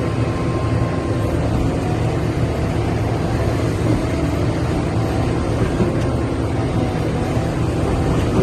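Liebherr R 974 crawler excavator's diesel engine running steadily.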